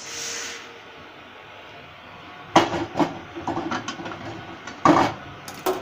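Roasted urad dal grains sliding off a pan onto a steel plate with a brief rushing hiss, then a string of sharp metallic knocks and clatters of cookware against the plate, loudest about five seconds in.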